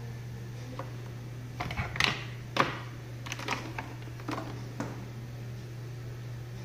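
Hard plastic clicks and knocks as Philips defibrillator paddles are handled: a cluster of sharp taps through the middle, loudest twice near the start of it, over a steady low hum.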